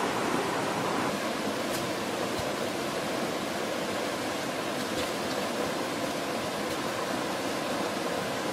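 Steady rush of water from a shallow rocky stream running over stones, with a few faint clicks.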